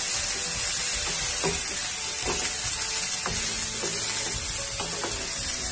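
Rice and vegetables sizzling in oil in a non-stick kadhai while a wooden spatula stirs them. There is a steady high sizzle with a scraping stroke of the spatula about once a second.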